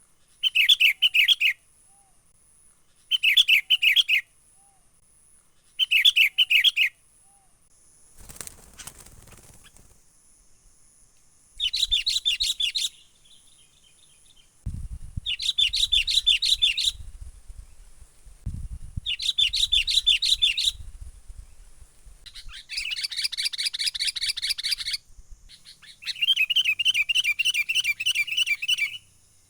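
Sooty-headed bulbul (kutilang) calling in repeated bursts of fast chattering notes, each about a second long with pauses between; the bursts come closer together and run longer in the second half.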